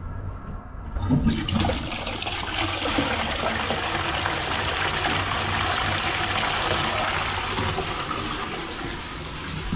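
Toilet flushing: water rushes into the bowl and swirls away, starting about a second in and easing off near the end. It is flushed as a flow test after a drain blockage was plunged clear.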